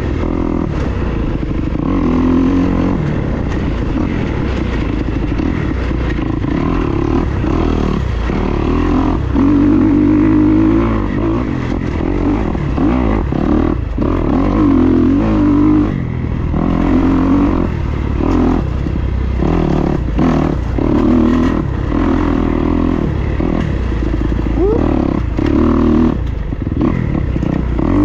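Dirt bike engine being ridden on a trail, the throttle opening and closing so the engine note keeps rising and falling, with frequent knocks and rattles from the bike going over rough ground.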